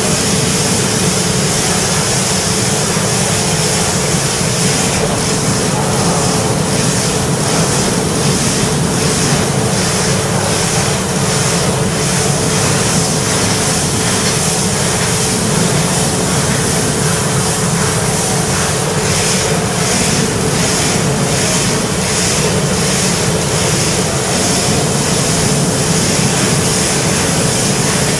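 CNC laser cutting machine cutting thin sheet steel: a steady loud hiss with an even hum, and a faint pulsing about twice a second through the middle.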